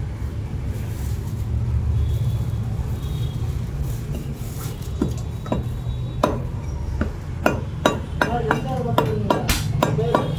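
Heavy butcher's cleaver chopping mutton on a wooden block. A few separate strikes come about halfway through, then a quicker run of about three chops a second toward the end, over a steady low hum.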